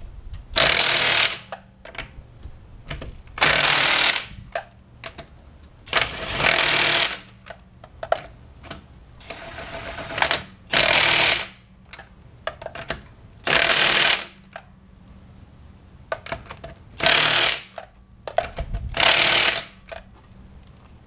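Cordless impact wrench hammering wheel lug nuts tight through an 80 ft-lb torque-stick extension, in about eight short bursts of under a second each with pauses between as it moves from nut to nut.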